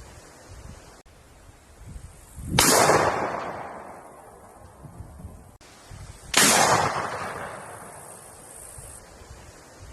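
Two single gunshots, about four seconds apart, each followed by a long fading echo.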